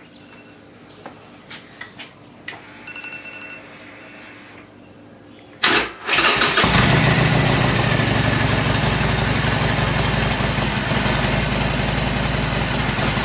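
Harley-Davidson Iron 1200 Sportster's air-cooled V-twin being started on a freshly charged battery: a few small clicks, then about five and a half seconds in a brief crank and the engine catches and settles into a steady, loud idle.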